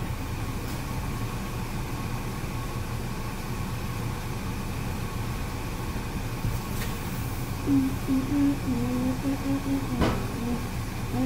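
Steady low background hum, then from about eight seconds in a child hums a short wavering tune, with a single thud near the ten-second mark.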